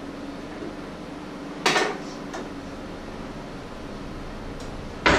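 A metal utensil clanking against a stainless steel mixing bowl twice, about three and a half seconds apart, each clank ringing briefly, with a faint tick just after the first.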